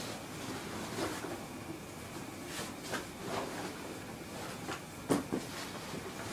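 Handling noise: rustling and a few light knocks as things are picked up and moved about, with two sharper knocks about five seconds in.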